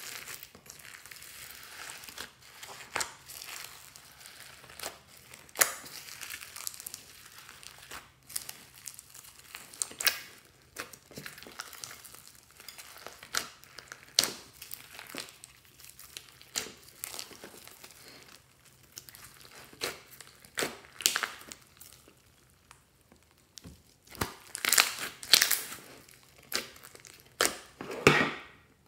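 Hands squishing and kneading a mass of slime packed with small foam beads: irregular crackling, popping and squelching, busiest and loudest near the end as the slime is pulled up off the glass dish.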